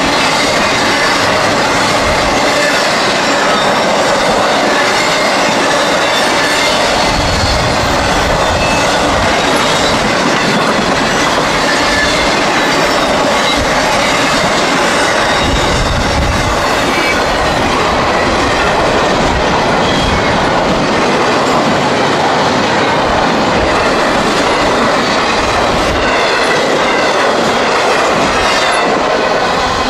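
CSX intermodal freight train, many of its well cars running empty, rolling past at speed: a steady loud rush of steel wheels on rail, with clickety-clack over the rail joints and some wheel squeal.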